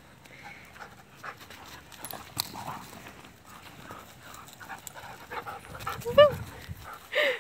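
Dogs panting as they play, with two short high-pitched dog cries near the end.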